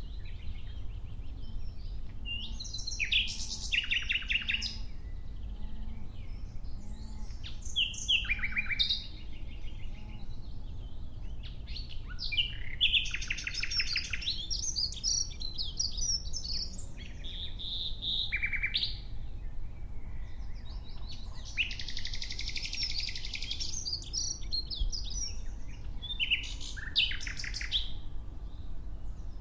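Nightingale singing in separate phrases of rapid repeated notes and fast trills, with short pauses between phrases. About two-thirds of the way through comes one long, loud, rasping phrase.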